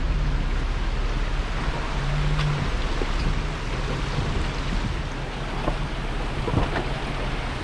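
Jeep driving slowly over a rough, washed-out gravel road: a steady low engine drone under tyre and road rumble, with a few short knocks.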